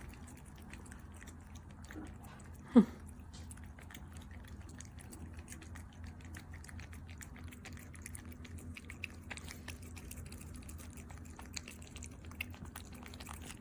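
Two Persian cats licking liquid treat paste from squeeze sticks: a steady patter of small wet licking and smacking clicks. About three seconds in there is one brief loud squeak that slides down in pitch.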